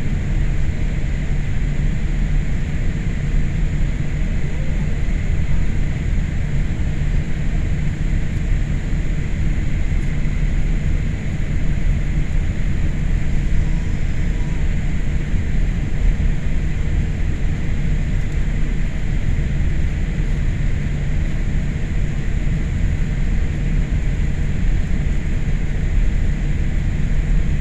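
Steady low rumble and hiss inside a Boeing 787 airliner's cabin on the ground before takeoff, with a faint steady whine over it, from the idling engines and cabin air.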